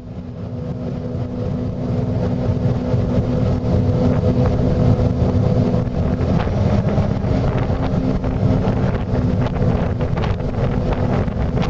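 Aluma-Jet boat's engine running steadily underway, with wind buffeting the microphone; it fades in over the first couple of seconds.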